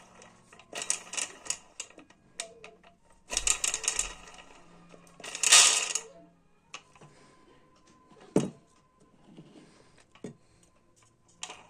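Mixer grinder jar and blade parts being handled, with irregular metal clicks and clatter, a louder scraping burst about five seconds in and a sharp knock a few seconds later.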